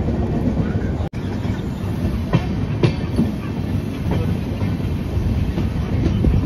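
Express passenger train running along the track, heard from the open door of a moving coach: a steady rumble of wheels on rail. A few sharper wheel clacks come about two to three seconds in, and the sound drops out for an instant about a second in.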